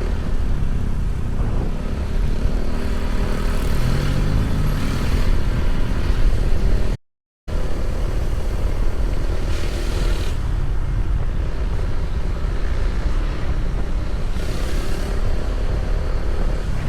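A motor vehicle on the move: steady low engine and road rumble, with an engine note that wavers up and down about four seconds in. The sound cuts out completely for about half a second around seven seconds in.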